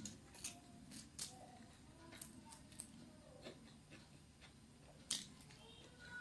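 Faint eating sounds of a person chewing chowmein noodles: soft mouth smacks and a string of short clicks, a few a second apart, the sharpest about five seconds in.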